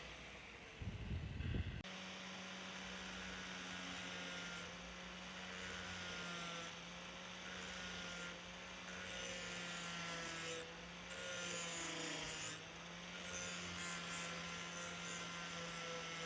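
A brief loud rumble about a second in, then a small electric power tool's motor running with a steady hum while abrading the cleaver's steel blade, with a rubbing, scraping noise over it.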